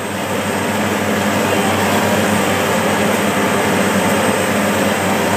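Asphalt paver's diesel engine running steadily under load, a constant hum with a dense rush of machinery noise over it.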